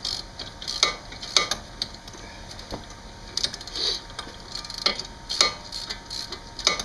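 Irregular light clicks and clinks of metal hand tools being handled, with short rustling noises in between.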